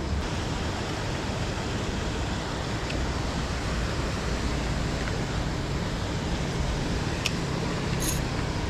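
Steady outdoor background noise: an even rushing hiss with a faint low hum, and a couple of faint short ticks near the end.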